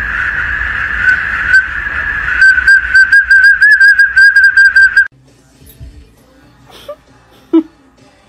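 Small plastic whistle held in a golden retriever's mouth, sounding as the dog breathes out through it while its nose is held shut. It gives a loud, shrill, steady tone that breaks into a fast warbling trill about two and a half seconds in, then cuts off suddenly about five seconds in.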